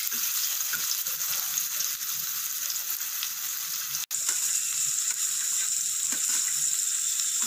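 Sliced red onions sizzling in hot oil in a kadai: a steady frying hiss, which cuts out for an instant about four seconds in.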